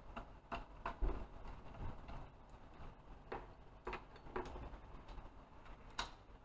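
Irregular light clicks and knocks, about eight in all, from hands and a small tool working a hose and its fittings around an engine's valve cover. The sharpest click comes near the end.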